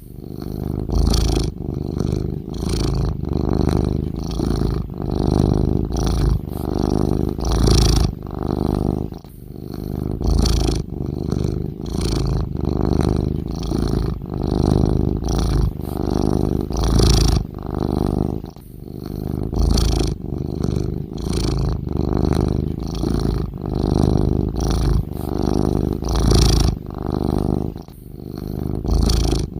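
Domestic cat snoring in its sleep: a rumbling, rasping sound with each breath, swelling and fading about every one and a half to two seconds, with several louder, sharper breaths among them.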